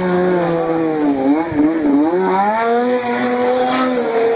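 Snowmobile engines running: one revving, its pitch dipping and climbing again a couple of times, over a steadier lower engine note.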